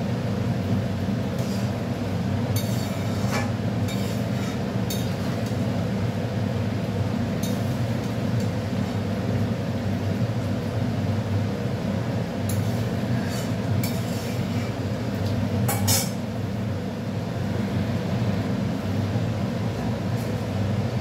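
Metal ladle clinking and scraping against an aluminium kadai as a thick pea curry is stirred, a few sharp clinks scattered through, over a steady low hum.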